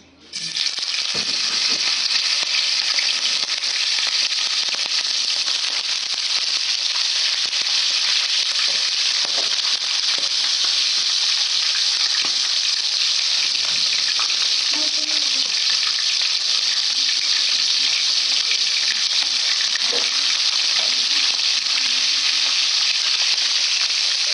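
Marinated pork tongue slices frying in hot oil in a steel wok: a loud, steady sizzle that starts suddenly as the first piece goes in.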